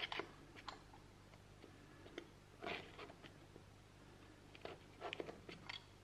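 Faint, scattered small clicks and scratchy scrapes of a hand tool working at a metal door strike plate held on with masking tape, with a longer crunchy scrape about two and a half seconds in and a quick cluster of clicks near the end.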